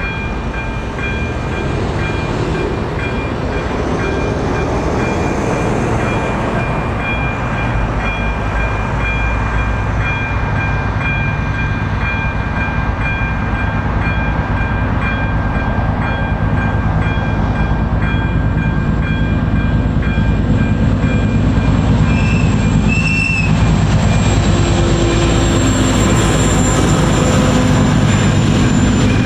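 Level-crossing warning bell (AŽD 97 crossing with ZV02 electronic bell) ringing steadily while an ČD Cargo class 742 diesel locomotive approaches, its engine rumble slowly growing louder. Near the end the locomotive and its container wagons are rolling across the crossing.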